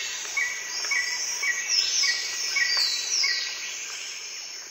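Insect and bird ambience: a steady insect hiss with a short chirp repeating a little under twice a second and a few higher falling calls, fading gradually toward the end.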